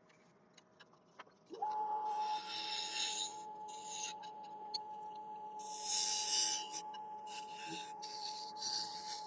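Wood lathe's motor starting up about a second and a half in after a few light clicks, its whine rising quickly to a steady pitch, while a turning tool cuts dry yew with intermittent hissing and scraping.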